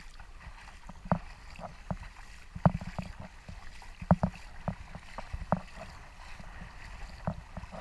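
Footsteps wading through ankle-deep water, a short splash about every half second, with light wind on the microphone.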